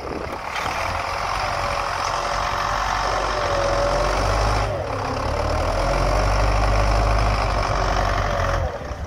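MTZ Belarus tractor's diesel engine running hard under load while pulling a tree stump out on a cable. The engine note wavers up and down, dips briefly about halfway, and falls off shortly before the end.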